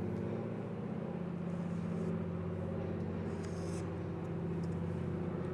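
A steady, low engine hum running at an even pitch.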